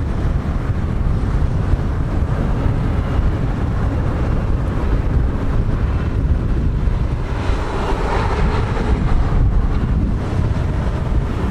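Embraer E175's twin GE CF34-8E turbofans at takeoff thrust, a steady jet roar heard from behind as the airliner rolls away down the runway, swelling about eight seconds in. Wind buffets the microphone with a low rumble throughout.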